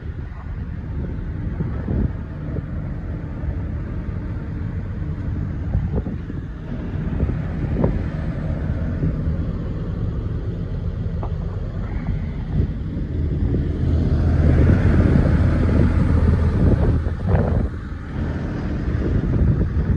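Hitachi ZX130LCN-6 excavator's diesel engine idling steadily, with wind on the microphone. The engine is louder for a few seconds past the middle, where the rear engine cover is passed.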